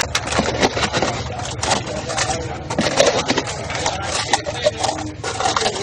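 Irregular clatter, knocks and scraping of bowls and containers being handled on a table.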